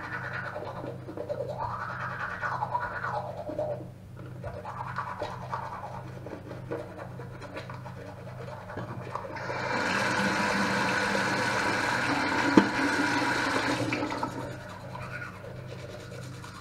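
Toothbrush scrubbing teeth in rough strokes. About ten seconds in, water starts running loudly for about four seconds, then stops.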